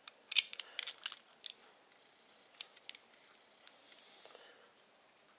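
A few sharp clicks and knocks of small metal parts and tools being handled, the loudest about half a second in and a quick cluster around one second, with no drill running.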